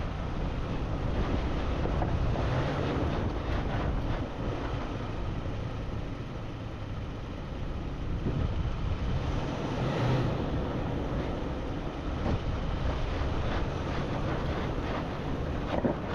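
Off-road vehicle engine rumbling at low speed over rough rocky ground, with many small rattles and wind buffeting the microphone.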